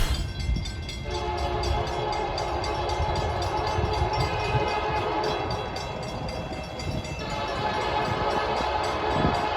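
Nathan K3LA/K3HA "Narrow Font" three-chime locomotive air horn sounding one long, steady chord over the rumble of a passing train. The chord starts just after the intro music cuts off and drops away near the end.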